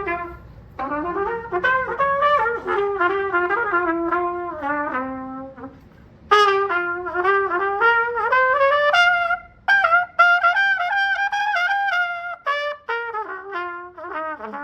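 A solo trumpet plays a melody as a single line in phrases, with a short pause about halfway through and a brief break a few seconds later.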